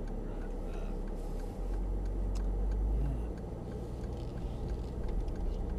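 Cabin noise inside a Mercedes-Benz 4x4 moving off at low speed: a low engine and tyre rumble that grows louder about a second and a half in as the car pulls away, with a few faint clicks.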